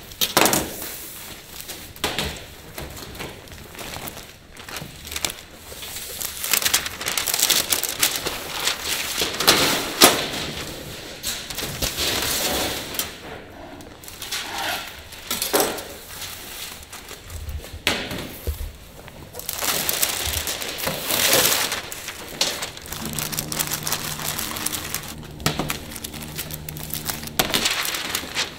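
Roll cake production-line work sounds: repeated knocks, clatter and rustling handling noises, with a steady machine hum for a few seconds near the end.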